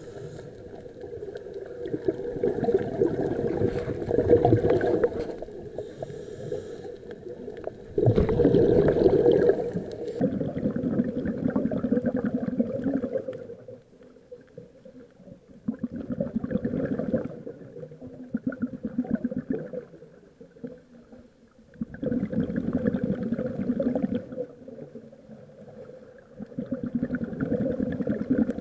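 Scuba diver breathing underwater through a regulator: bursts of exhaled bubbles gurgling and rumbling, one every five or six seconds, with quieter stretches between.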